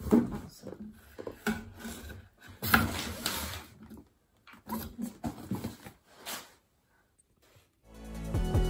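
Hands handling and turning a cardboard box: irregular rubbing, scraping and light knocks for about six seconds. After a short silence, music fades in near the end.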